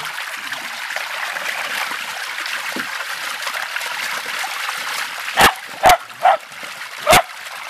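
Garden hose running under the water of a tub, a steady churning rush of water. About five seconds in, a small dachshund-mix dog barks four times in quick succession.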